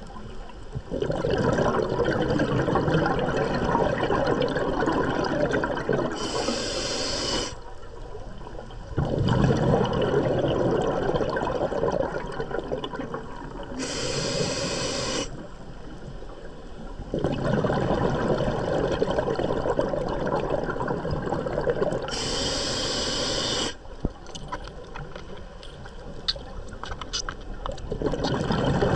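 Scuba diver breathing through a regulator underwater: long rushes of exhaled bubbles alternate with short, high hisses of inhalation, about three breaths, one roughly every eight seconds.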